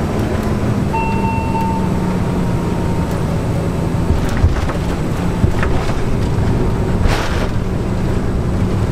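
Private jet cabin noise after landing: a steady engine and airflow rumble with a low hum, a few light clicks near the middle and a short hiss about seven seconds in.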